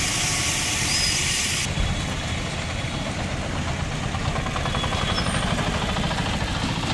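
Cargo autorickshaw engine running with a steady, fast-pulsing rumble as the three-wheeler crawls over a rough, waterlogged road. A hiss in the first second and a half cuts off abruptly.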